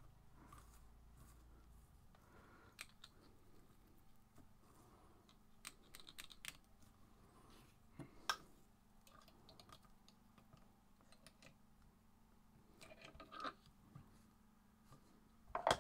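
Faint, scattered small clicks and ticks from hands working on a fly in a fly-tying vise.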